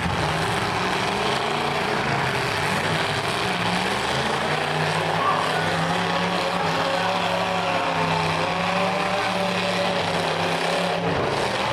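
Several demolition derby cars' engines running and revving together in one loud, steady din, with the pitch rising and falling through the middle.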